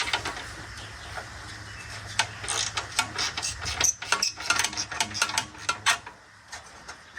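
Irregular metallic clicks and clanks of hand tools working loose bolts and parts on an old car body, coming thickest in the middle, over a steady low hum.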